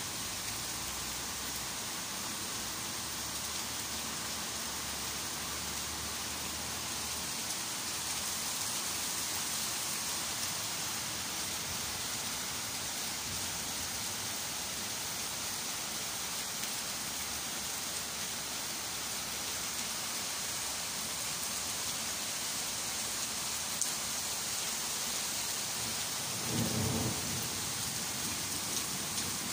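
Heavy summer downpour: a steady hiss of rain falling on leaves, grass and pavement. A brief low rumble comes in near the end.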